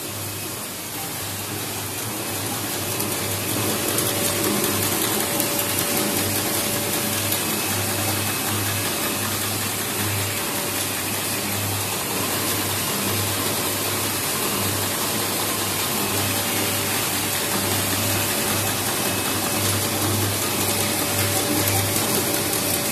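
Automatic cotton swab making machine running: a steady mechanical whir with a faint constant hum and a low throb that pulses about once a second, growing louder over the first few seconds.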